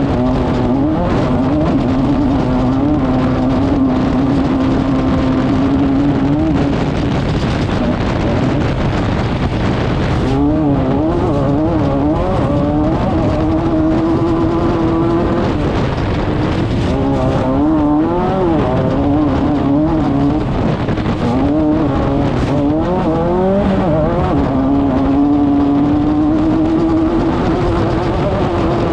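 Class 5/1600 desert race car's air-cooled 1600 cc VW engine running hard, its revs swinging up and down in quick repeated surges, steadier for a few seconds at a time, over a constant rush of noise.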